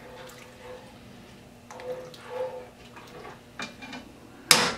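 A ladle stirring braising liquid in a cast-iron pot, with soft sloshing scrapes. About four and a half seconds in, the ladle strikes the pot with a single sharp clank.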